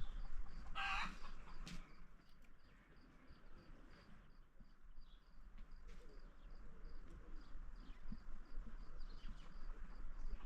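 A chicken gives one loud squawk about a second in, then clucks faintly. A faint, high, evenly repeating insect chirp, a few times a second, runs behind it.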